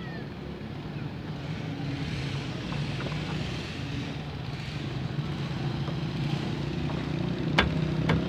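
A motor engine running steadily and growing louder as it comes closer, with two sharp clicks near the end.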